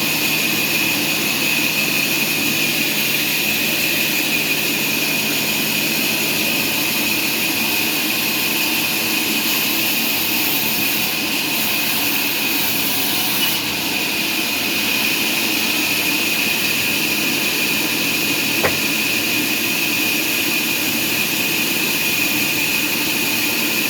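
Sawmill machinery running steadily: a loud, even hiss with a constant high whine, and a single click near the end.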